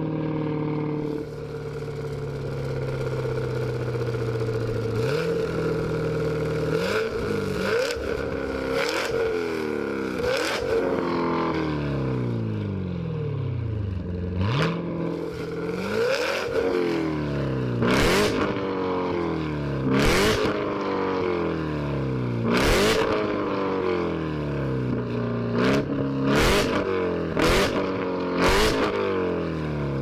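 Chevrolet Corvette C7 ZR1's supercharged V8 idling, then revved again and again, each rev rising in pitch and falling back. In the second half, sharp cracks come at the top of several of the revs.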